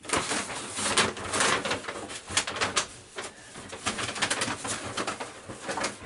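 Off-camera rustling and crinkling of product packaging being rummaged for and handled, a dense run of crackles and small clicks.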